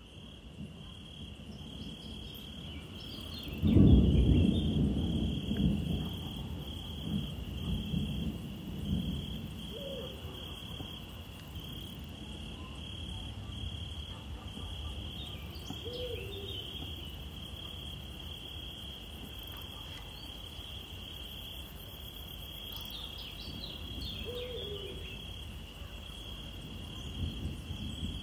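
Dusk forest ambience: insects chirring steadily in a high band. A deep rumble breaks in suddenly about four seconds in and fades over several seconds, the loudest sound. A few short, low hoots come now and then.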